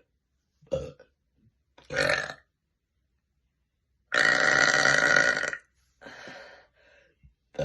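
A woman burping: two short burps in the first couple of seconds, then one long, loud burp about four seconds in lasting about a second and a half, followed by a fainter one.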